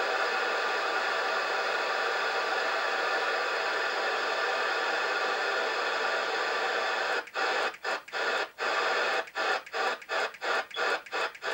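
Albrecht AE6199 FM CB radio's speaker giving a steady receiver hiss with the squelch open. About seven seconds in, the hiss breaks into short chopped bursts, dropping out briefly again and again as the set steps through the channels.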